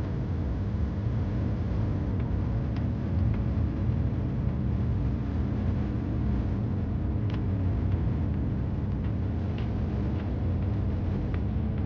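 Steady low rumble of engine and airflow noise inside the cabin of a Boeing 787-8 airliner in flight at low altitude on approach, heard at a window seat, with a few faint clicks.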